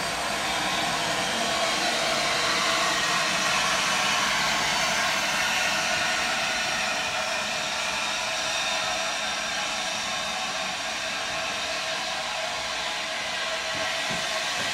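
LNER Class A4 steam locomotive giving off a steady hiss of steam.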